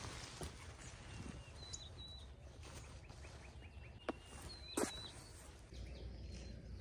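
Faint outdoor ambience with a low rumble of wind and small birds chirping a few times. Two sharp clicks come about four and five seconds in.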